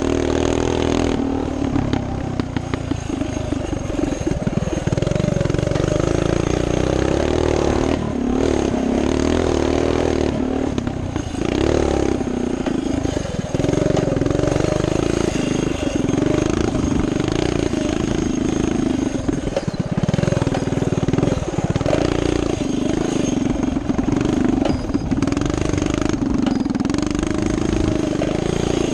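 Coleman CT200U minibike's small single-cylinder four-stroke engine running under throttle while riding over dirt, its pitch rising and falling as the revs change.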